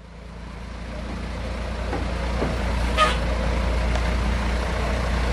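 Vintage Mack B-model truck's engine running with a steady deep rumble as it drives slowly past, fading in over the first couple of seconds. About three seconds in comes one brief high-pitched toot.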